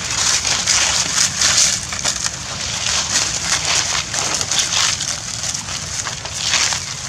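Dry fallen leaves crunching and rustling under footsteps: a continuous crackle that swells and fades unevenly.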